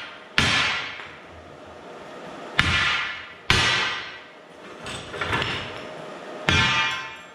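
Hammer striking a long hardened-steel cutting-edge plate. Four hard blows with lighter taps about five seconds in, the steel ringing after each blow.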